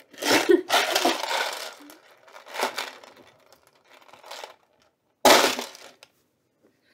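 A plastic tub with loom bands in it being handled: a few bursts of rattling and scraping, and a sharp louder knock about five seconds in.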